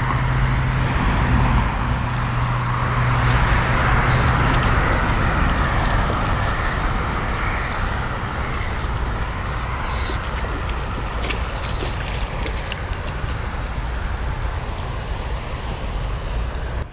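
Steady road traffic noise of passing cars, with a low engine hum in the first few seconds and a few faint clicks.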